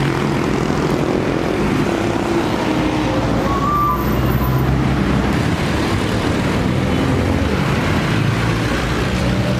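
Motor vehicle running steadily: a continuous engine drone with road and wind noise.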